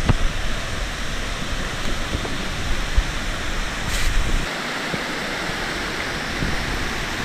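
Shallow mountain river rushing over rocks in white-water rapids, a steady hiss. Wind rumbles on the microphone until it drops away about four and a half seconds in.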